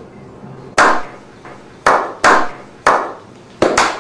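A slow clap: single hand claps about a second apart, each with a short echo, speeding up near the end into quicker clapping as more hands join in.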